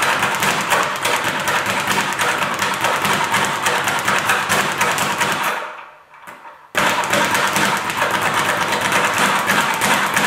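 Speed bag punched in a rapid, rolling rhythm, the bag rattling against its wooden rebound board. The rattle fades out a little past halfway, there is a brief lull, and then it starts again abruptly.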